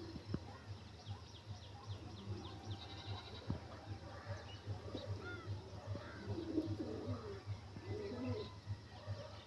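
A flock of feral rock pigeons cooing as they feed, the low coos growing thicker in the second half, with scattered higher bird chirps and a couple of sharp clicks near the start.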